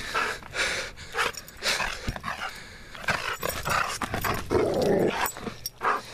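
White curly-coated dog growling in play as it lunges and jumps about, with scuffling and sharp knocks throughout.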